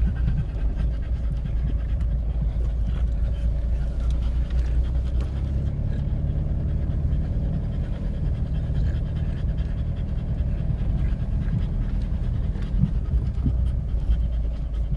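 A dog panting steadily close by, over the low, steady rumble of a car rolling slowly across a bumpy grass track, heard from inside the cabin.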